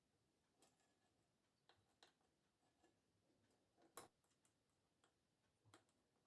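Very faint, irregular clicks and taps from a Miele toy washing machine during its wash phase, the loudest about four seconds in.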